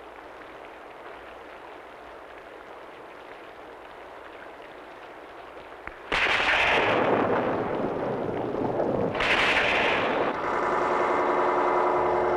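Film sound effect of a sword struck by lightning: two loud crashing blasts like lightning strikes, about six seconds in and again about three seconds later, over a faint steady hiss. After the second blast a wavering electronic drone of several tones takes over.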